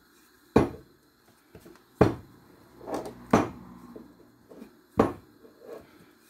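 Four sharp wooden knocks about a second and a half apart, with fainter taps between them: a wooden rolling pin knocking on the worktop as chapati dough is rolled out.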